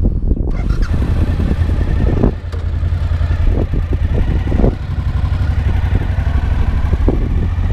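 Motorcycle engine pulling away from a stop and accelerating, its note dipping briefly twice as it shifts up. Wind noise comes in on the microphone as the bike gets under way.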